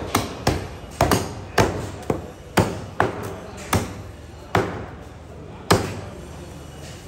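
A butcher's cleaver chopping through meat and bone on a cutting block: about a dozen sharp chops at an uneven pace of roughly two a second.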